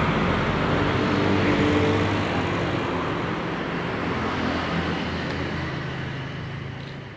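A road vehicle's engine hum with road noise, steadily fading as it moves away.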